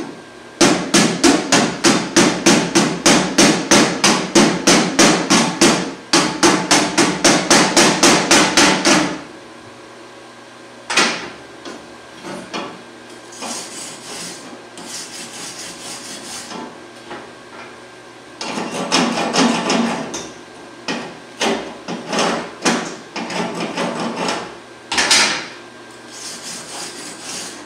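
Chipping hammer knocking the slag off a fresh stick-weld bead: rapid metal-on-metal taps, about four a second, for the first nine seconds or so, then shorter runs of tapping mixed with some scraping.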